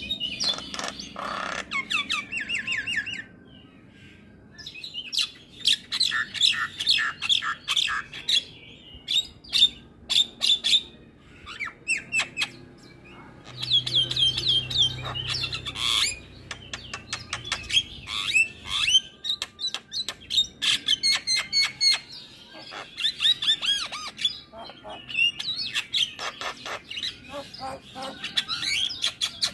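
Javan myna singing a long, varied chattering song: bursts of rapid chirps, whistled notes and sharp clicks, broken by short pauses.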